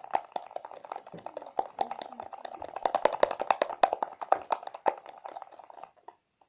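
A spoon stirring and knocking inside a cup of thickened shampoo-and-salt slime: rapid, irregular clicks and knocks that stop about six seconds in.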